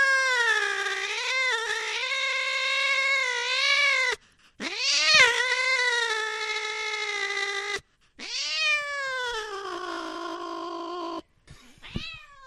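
A cat yowling in three long drawn-out calls of a few seconds each. Each call rises in pitch at its start and then slides slowly down with a slight waver. A short cry follows near the end.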